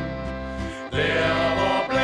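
Group of men singing a Danish sea song together over a piano accordion accompaniment. There is a brief break about halfway through, then a louder phrase.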